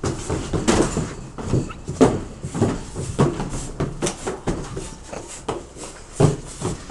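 Ground firework fountain crackling, with irregular sharp pops several times a second.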